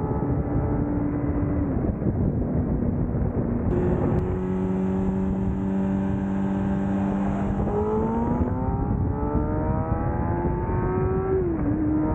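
Kawasaki ZX-10R's 1000cc inline-four engine running under way: its pitch holds, dips about two seconds in, holds lower, then climbs steadily as the bike accelerates. Near the end it drops sharply, as at a gear change.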